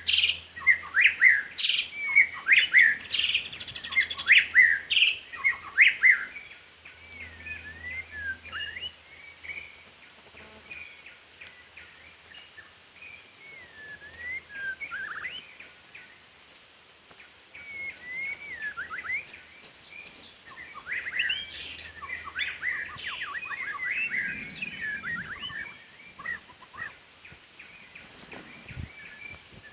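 White-rumped shama singing: a run of varied, rapid whistled phrases and quick chatters, loud for the first six seconds, softer through the middle, then loud and busy again from about eighteen seconds in.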